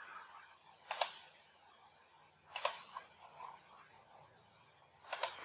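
Sharp clicks of computer input: one about a second in, a quick pair around the middle, and another quick pair near the end.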